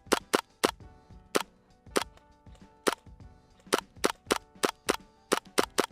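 Airsoft gun firing single shots: about fourteen sharp cracks at uneven spacing, coming faster in the last two seconds.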